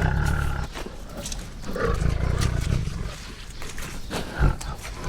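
Tiger roaring in deep, rough bursts: one at the start, a longer one about two seconds in, and a short one near the end.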